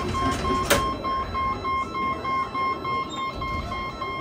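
A run of electronic beeps, about four a second, with a higher tone joining about a second and a half in, over low background noise and one sharp click.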